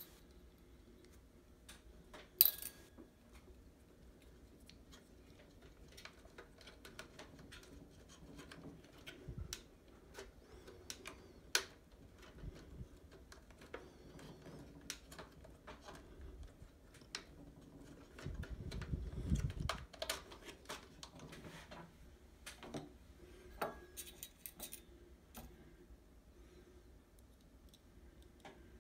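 Hands working inside an open espresso machine: scattered clicks and taps of plastic fittings, tubing and a metal nut driver, with one sharp click about two seconds in. A low rumble of handling lasts a second or so about two-thirds of the way through.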